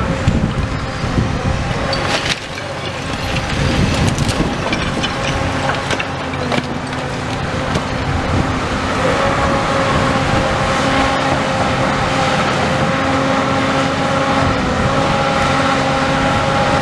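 Hydraulic demolition excavator working a grab against a brick building: the diesel engine runs steadily with a hydraulic whine, and bricks and rubble crash and clatter down in the first several seconds.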